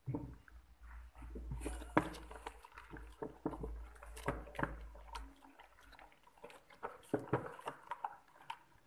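Wooden spatula stirring a runny yeast batter in a bowl: irregular wet slaps and scrapes against the bowl.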